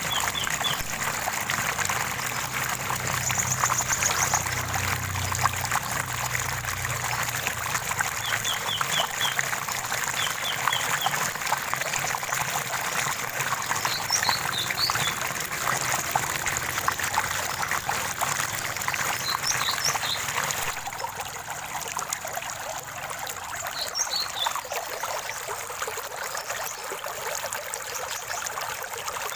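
Shallow stream trickling and splashing over stones, a steady rush full of small splashes that grows a little quieter about two-thirds of the way through. Small birds chirp over it now and then, in short quick trills and single high notes.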